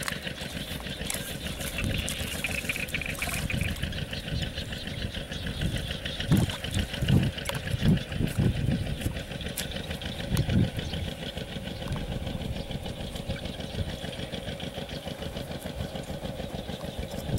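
A steady, finely pulsing engine drone runs throughout. Several dull thuds come from the middle of the stretch: a hoe chopping into wet mud.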